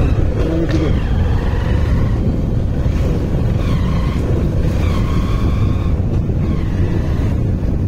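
Motorcycle riding along a road: steady engine and road rumble, loud and constant, with faint higher tones from the traffic coming and going above it.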